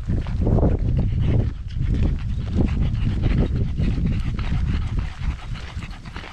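French bulldog panting hard and fast, close to the microphone, with heavy low rumbling underneath.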